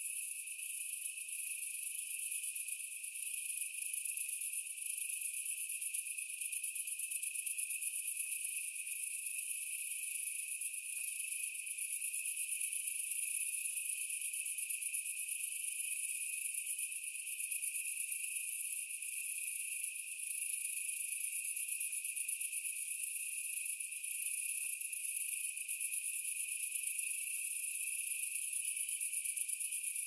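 Chorus of cicadas singing: a steady, high-pitched buzz that never lets up.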